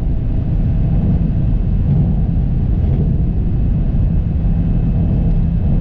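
Steady low rumble of engine and road noise heard inside the cabin of a 2019 Corvette C7 Z06 cruising at an even pace, with no revving or gear changes.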